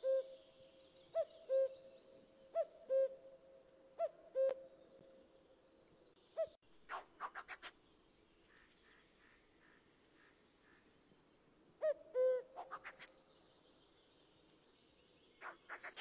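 Recorded bird call played back: a low two-note call repeated about every second and a half, broken twice by a quick run of notes.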